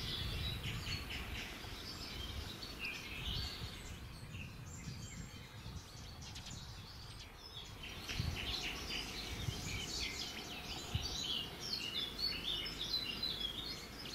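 Small birds chirping and twittering, sparser around the middle and busiest in the second half, over a low steady rumble.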